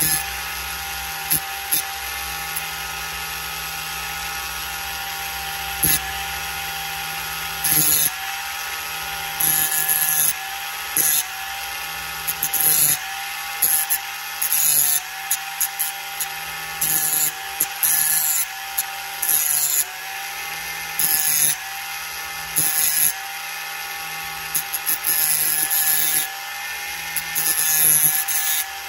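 Ryobi OnePlus cordless rotary tool running at medium speed with a sanding disc: a steady motor whine that dips slightly in pitch each time the disc is pressed in, with repeated short bursts of hissing grinding as the disc sands curb rash off an alloy wheel rim.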